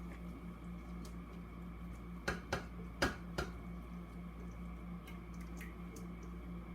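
A utensil knocks sharply against a dish four times, two close together a little over two seconds in and two more around three seconds, over a steady low hum.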